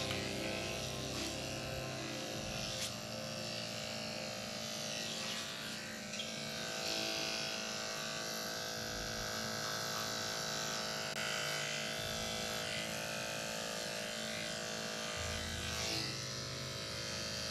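Electric dog grooming clippers running with a steady hum as they shave the dog's coat.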